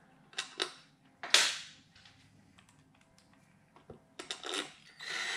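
Tools clicking and one sharp knock, then a cordless driver running in short bursts on the Ducati clutch cover screws.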